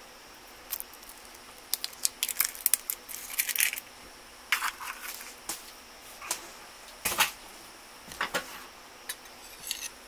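Eggs being cracked into a mixing bowl: scattered sharp clicks and short crackles of eggshell against the bowl and breaking apart, in several clusters.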